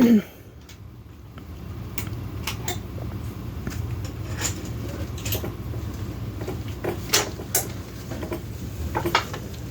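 A low steady rumble starts about a second in, with scattered light knocks and clicks over it, about eight in all.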